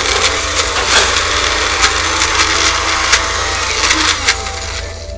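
Small cup-type blender running, grinding boiled edamame with a little simmering liquid into a thick paste, with sharp clicks all through. The mix is stiff and turns poorly. The motor stops near the end.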